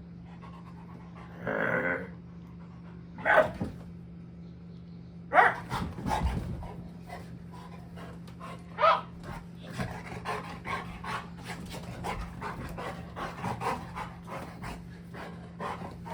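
Two pet dogs play-fighting: short growls and a few sharp barks, the loudest a little after five seconds in, then fast panting and scuffling.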